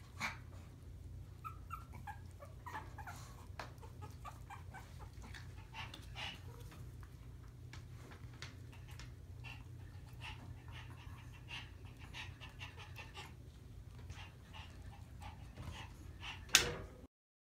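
Month-old Maltese puppies whimpering and yipping softly among scattered small clicks and scuffles, over a low steady hum. A single sharp knock near the end is the loudest sound, and then the sound cuts off suddenly.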